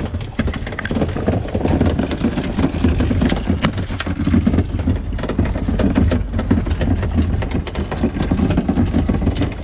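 Small boat's outboard motor running steadily under wind and sea noise, with scattered knocks and clatter.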